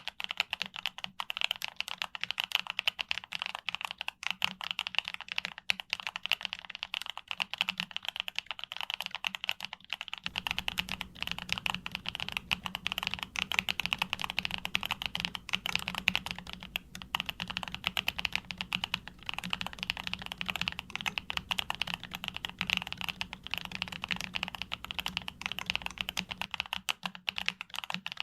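Fast, continuous typing on a YUNZII B75 Pro mechanical keyboard: a dense stream of key clacks. A low hum sits underneath from about ten seconds in until near the end.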